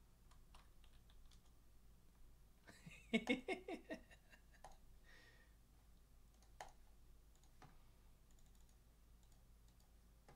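Faint computer keyboard typing and mouse clicks, scattered through. About three seconds in, a brief pitched, rapidly pulsing voice-like sound lasting about a second is the loudest thing.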